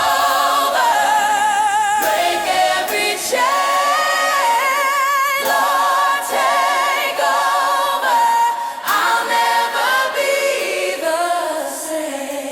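AI-generated gospel worship singing, a cappella: a choir of voices with a lead line of long held notes with vibrato, and no bass or beat underneath.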